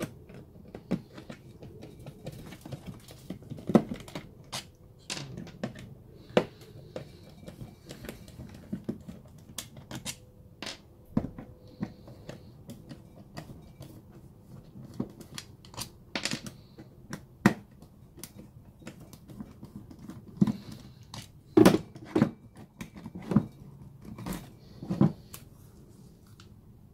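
Irregular clicks, taps and knocks of hard plastic and small screws as a DeWalt drill battery pack is unscrewed with a T10 bit and its plastic case pulled apart, with several louder knocks in the last third as the cell stack comes out of the case.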